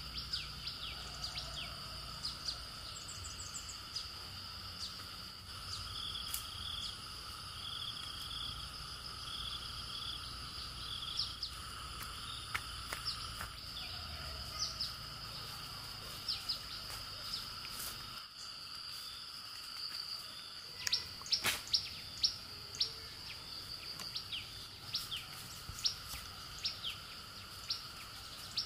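Forest ambience: a steady insect drone at several pitches, with frequent short bird chirps and calls over it, coming thicker and sharper in the last third.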